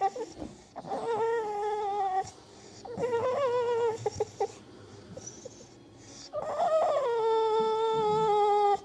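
Dog whining: a short whine trailing off at the start, then three drawn-out, high whines, each held at a fairly steady pitch, the last and longest lasting about two and a half seconds.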